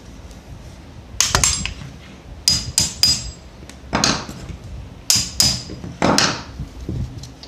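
Hammer tapping a pin punch against the frame pins of a blank pistol: about ten sharp metallic taps in small irregular groups, some with a short ringing tone.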